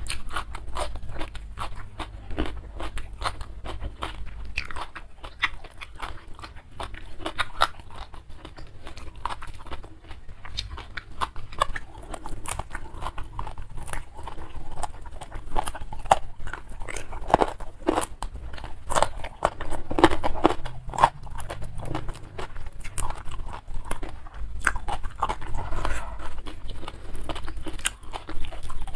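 A person chewing and crunching mouthfuls of food close to a clip-on microphone, with many small crunches throughout.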